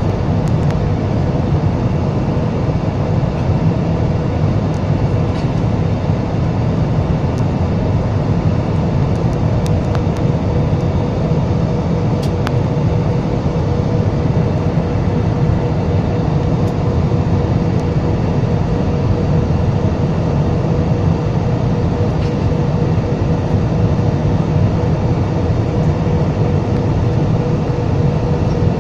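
Jet airliner cabin noise on the descent: a steady low roar of engines and rushing air, with a constant hum running through it.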